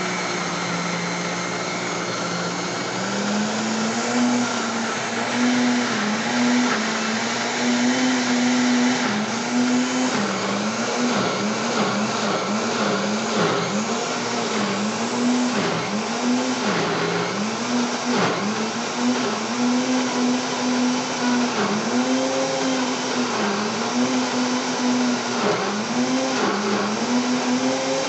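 Kitchen blender running continuously while blending homemade seasoning. The motor's whine steps up in pitch a few seconds in, then dips and recovers again and again as the load of the mix changes.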